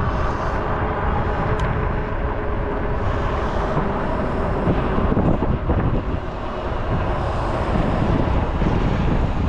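Steady wind rush on the microphone and road noise from riding an e-bike, with no break.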